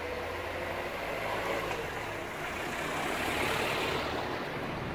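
Car driving slowly along a narrow street, its engine and tyres growing louder to a peak about three to four seconds in, over steady street noise.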